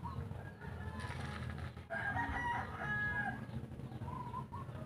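A rooster crowing, with one long crow about two seconds in.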